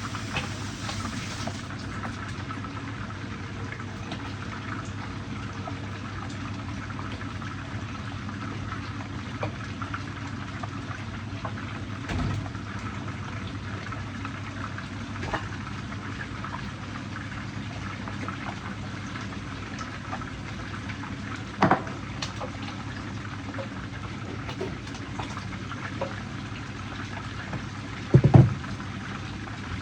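Fish frying in hot oil in a pan: a steady sizzle with scattered small crackles and spits. Two louder short knocks, about 22 and 28 seconds in.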